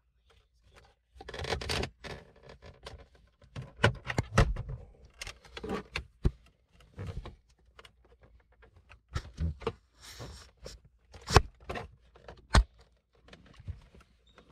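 Irregular clicks, knocks and short scrapes of hard plastic trim being handled in a car's centre console, with a few sharp clicks near the end.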